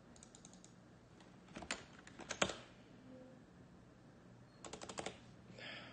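Computer keyboard typing in short groups of keystrokes: a few faint taps near the start, a louder cluster about two seconds in, and a quick run of keys near the end.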